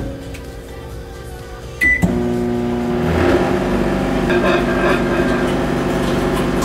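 Microwave oven switched on with a single short keypad beep about two seconds in, then running with a steady electrical hum.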